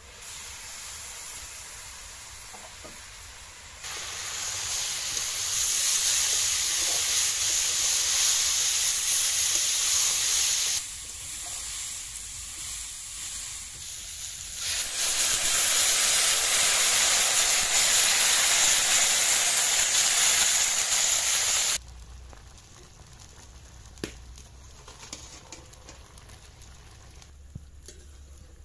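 Hot oil sizzling hard in a kadai as chopped onion stalks fry, a loud steady hiss that comes in stretches and stops abruptly. After it cuts off, only a low background remains, with a few light clicks of a ladle against the pan.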